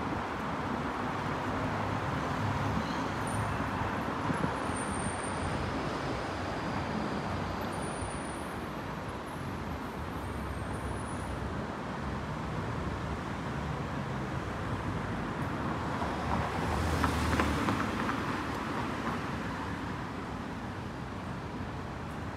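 Street traffic noise, a steady hum of road vehicles. A vehicle passes close by about three-quarters of the way through, swelling and then fading.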